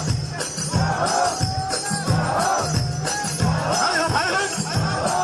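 Musical intro of an Iraqi bandariya-style latmiya: a steady, driving low beat under a wavering, gliding melody line, before the chanting begins.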